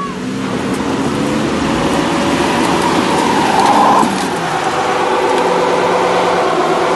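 Toyota Hilux and Mitsubishi L200 pickup engines revving hard as the two trucks pull against each other in a tug of war, their tyres spinning on loose dirt. The engine pitch climbs for about four seconds, drops suddenly, then holds high.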